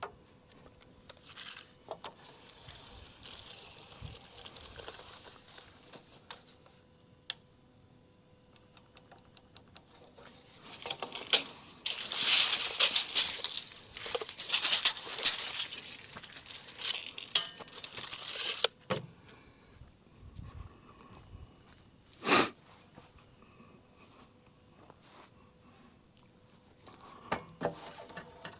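Insects trilling in a steady high tone throughout, over scattered handling noises. About eleven seconds in comes a long stretch of rustling and scraping with many small clicks, which stops abruptly; a few seconds later there is a single sharp knock.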